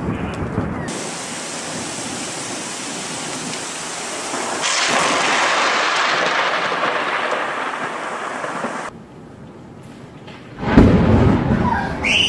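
Steady rain, then a sudden crack of thunder about four and a half seconds in that rolls away over several seconds. Near the end comes a second, louder, deeper thunderclap.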